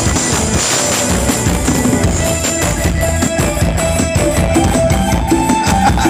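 Live band playing upbeat Thai ramwong dance music over a steady drum-kit beat, with a melody line coming in about two seconds in.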